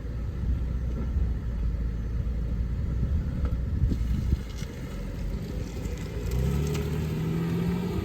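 2010 Cadillac CTS 3.0L V6 with dual exhaust, running with a low rumble. About six seconds in the engine revs up and holds a higher steady pitch.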